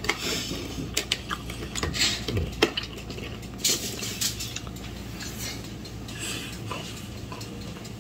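Tableware clinking and clattering: spoons and forks knocking on plates, bowls and plastic takeout containers during a meal, in irregular short clicks that are thickest in the first few seconds.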